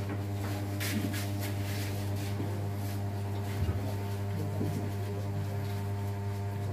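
A steady low hum made of several even, unchanging tones, with a few faint taps and clicks.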